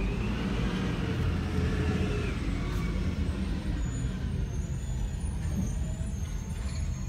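Garbage truck pulling away, its drivetrain whine rising and then falling in pitch over a steady low rumble, heard from inside a following car.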